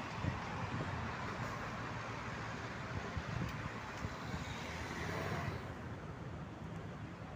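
City road traffic: cars passing on a multi-lane street, a steady rush of engines and tyres that eases off about five and a half seconds in.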